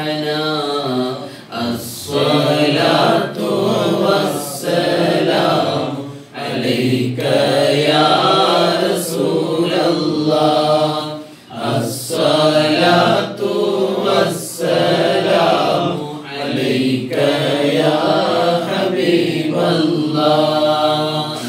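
A man singing solo and unaccompanied in a chant-like style, with long held notes that waver and ornament the melody, pausing briefly for breath a few times.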